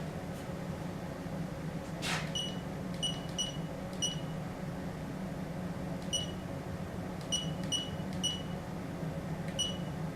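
Short, high electronic beeps, about nine at irregular intervals, over a steady low hum; a single sharp click comes just before the first beep.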